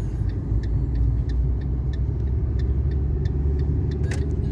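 Car driving slowly, heard from inside the cabin: a steady low rumble of engine and tyres, with faint regular ticks about three a second and a sharper click near the end.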